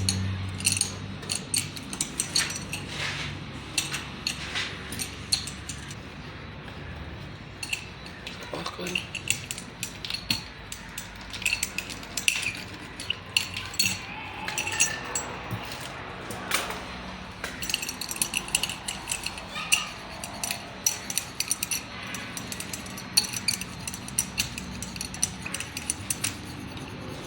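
Irregular metallic clinks and taps of hand tools being handled and set down, sharp and uneven in spacing, during truck tyre repair work.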